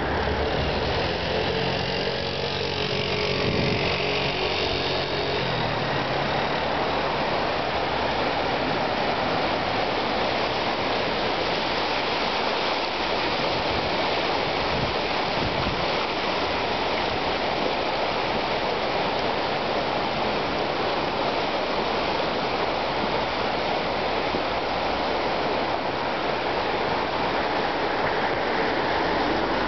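Steady rushing of a flood-swollen, muddy river running fast after heavy rain. A vehicle engine passes in the first few seconds.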